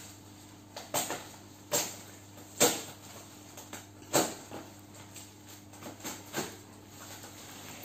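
Plastic packaging and tape on a thick bubble-wrapped parcel crinkling and tearing as it is pulled open by hand: a series of short, sharp crackles, the loudest about two and a half seconds in, over a low steady hum.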